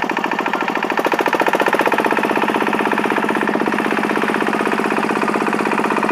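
Crawler rotary cultivator's engine running hard and steady with a fast even chugging beat as the rear tiller digs into the ground, a little louder from about a second in.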